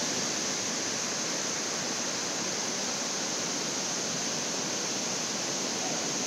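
Whitewater of a waterfall and its rapids pouring over and between boulders: a steady, unbroken rush of water.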